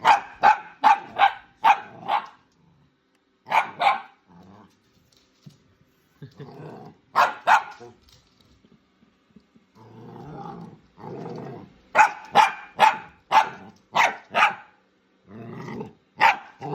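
Dog barking in quick runs of short, sharp barks, with low growls in between.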